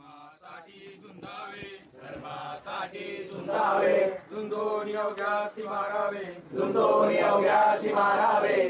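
A group of voices chanting together in unison, starting faint and swelling louder after a few seconds.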